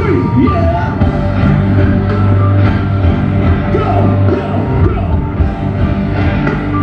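Live rock band playing loudly, with drums, bass and guitar and a voice singing at times.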